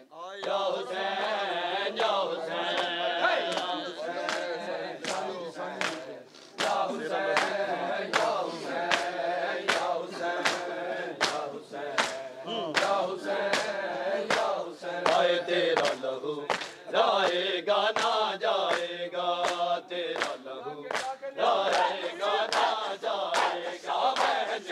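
A crowd of men chanting a noha lament together, led by one voice, with sharp hand slaps on the chest (matam) in a steady beat of nearly two a second joining in after a few seconds.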